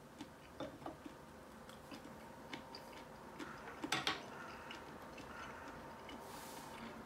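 Faint clicks and taps of wooden chopsticks and tableware, with a louder clack of sharp clicks about four seconds in as the chopsticks are set down on the rest. A brief soft hiss follows near the end.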